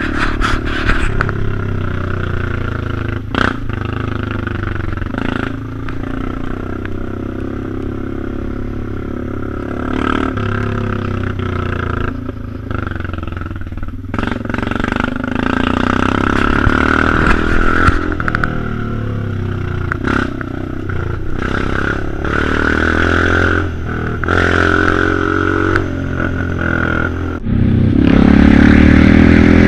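Quad bike (ATV) engine running under way on a dirt trail, its pitch rising and falling as the throttle changes, with knocks and rattles from the bumps. It gets suddenly louder near the end.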